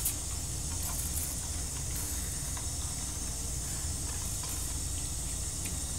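Steady hiss with a low hum underneath, and a few faint short ticks in the first couple of seconds.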